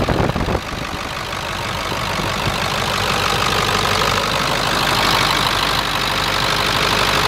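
Ford F-Super Duty truck engine idling steadily, heard close up in the engine bay with the cooling fan and belt-driven accessories turning. There is a heavier rumble in the first half-second, then an even run with a slowly rising hiss.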